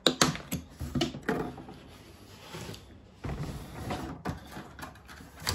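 Plastic latches and lid of a GearWrench tool-set case being handled and unclipped by hand: several sharp clicks and knocks in the first second or so, quieter rubbing of the plastic case in between, and another click near the end.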